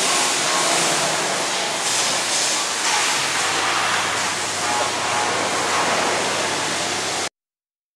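TP 1100DDA wide belt sander running: a loud, steady rushing noise that stops abruptly a little over seven seconds in.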